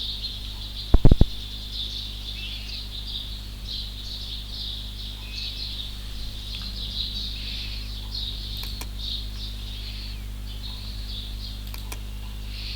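Small birds chirping continuously in the background over a steady electrical hum. About a second in, a quick pair of sharp clicks stands out as the loudest sound.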